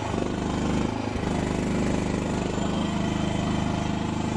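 Chinese mini skid steer's engine running, its note shifting in the first second and then holding steady.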